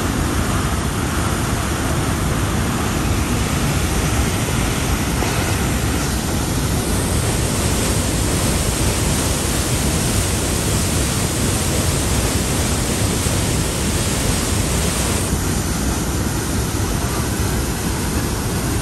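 Maligne River white water rushing through a narrow rock gorge below: a loud, steady rush of water with no break.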